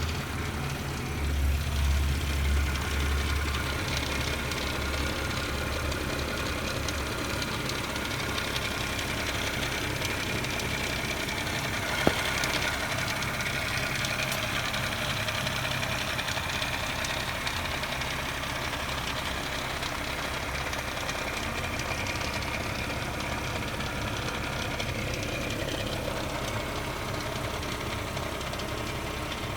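BMW 525xi (E60) engine idling steadily, with a louder low rumble about two to four seconds in and a single sharp click near the middle. The car's automatic transmission slips and has no reverse.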